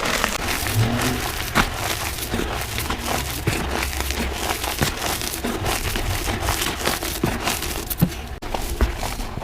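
Chalky powder block being crushed: a dense, continuous crackle of many small crunches and snaps, sped up to double speed.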